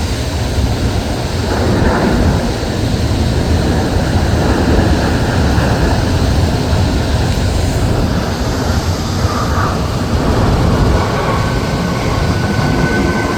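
Jet airliner engines running, a steady loud rumble with a faint rising whine near the end.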